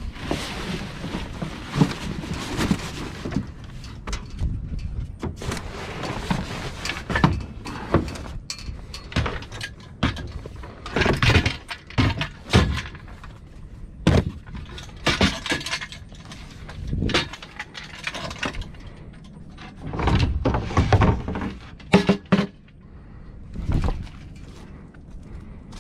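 Irregular clanks, knocks and rustling from a small trailer sailboat's rigging and gear being handled, with a few louder clusters of knocks partway through and near the end.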